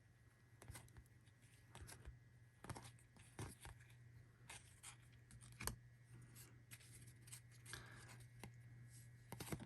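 Faint soft clicks and rubbing of baseball trading cards being slid and flipped one by one in the hands, irregular, roughly two a second.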